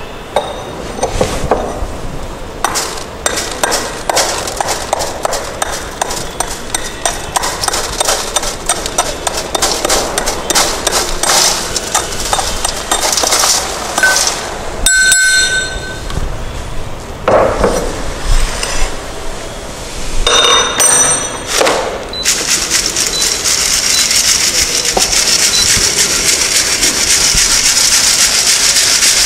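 Crushed stone aggregate being knocked and scraped out of a steel cylinder into a metal sieve: many sharp clinks and knocks of stone and rod on steel. From about two-thirds of the way in, a steady hissing rattle as the sieve is shaken by hand, the crushed aggregate sliding and its fines sifting through the 2.36 mm mesh.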